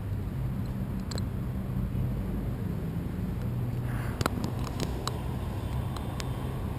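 Steady low rumble of wind on the microphone, with a run of sharp clicks and taps about four to six seconds in as hands handle a kite control bar's plastic fittings and lines.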